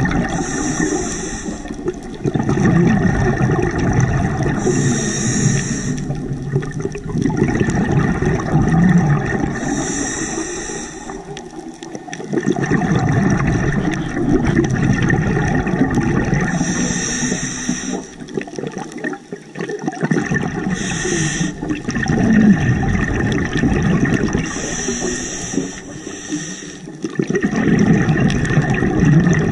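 Scuba diver breathing through a regulator underwater: a short hissing inhale every few seconds, each followed by a long gurgling rush of exhaled bubbles.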